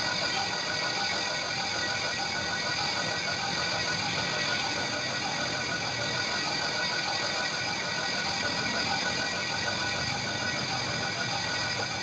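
A machine running steadily, an even hum made of several constant tones over a dense noise, with no change in speed.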